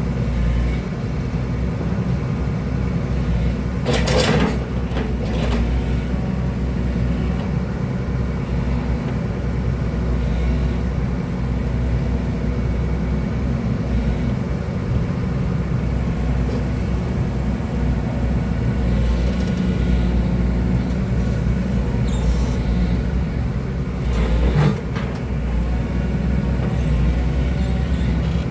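Excavator's diesel engine running steadily, with two brief louder noises, one about four seconds in and one near the end.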